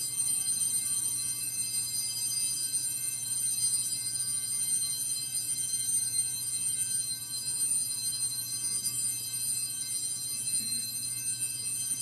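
A bright, bell-like chord held at a steady level on a church keyboard instrument, with no decay.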